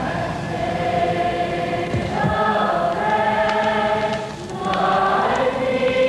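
A choir singing slow, sustained chords, moving to a new chord about two seconds in and again near the end.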